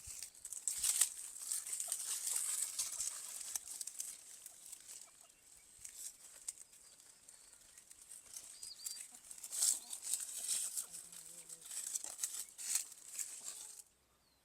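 Outdoor farmyard ambience with irregular rustling and crackling noises over a faint steady high hiss. A short bird chirp comes about nine seconds in. The sound cuts off abruptly near the end.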